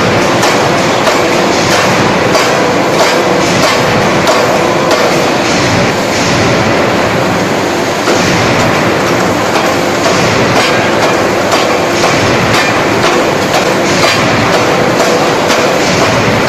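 Anyang 1-ton hydraulic open-die forging hammer striking a hot steel workpiece in continuous blow mode: a rapid, evenly spaced run of heavy impacts over a steady machine drone.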